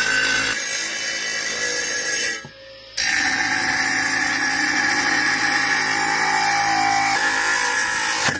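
Animal horn being ground against a spinning abrasive disc on an electric motor's spindle: a loud, steady grinding hiss with a whine in it. It breaks off for about half a second a little over two seconds in, then resumes.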